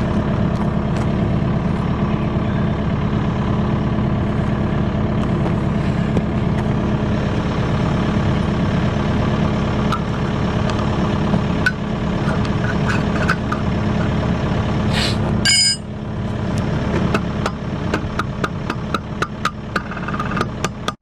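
Excavator diesel engine running steadily at an even pitch. About fifteen seconds in, a short burst of rattling comes and the sound drops in level, followed by a string of sharp clicks.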